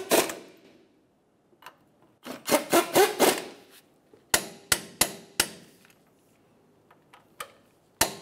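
Ratchet wrench clicking as the brake caliper mounting bolts are tightened: quick runs of clicks at the start and about two and a half seconds in, then a handful of single, sharper clicks.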